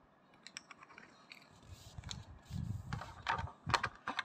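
Hands handling a smartwatch, its charging cable and its plastic-and-card box tray: a string of small clicks, taps and light knocks that gets busier and louder from about two seconds in, as the watch is pulled from its moulded tray.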